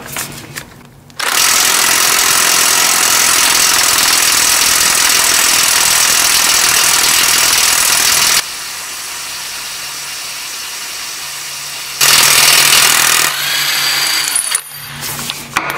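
Chicago Electric 18V cordless 1/2-inch impact wrench hammering on a car lug nut torqued to 200 foot-pounds, near the limit of its 300 foot-pound rating. It runs loud from about a second in, eases to a quieter run for a few seconds, then gives a short full burst before stopping, with a few small clinks near the end. The nut takes about 20 seconds of hammering to break loose.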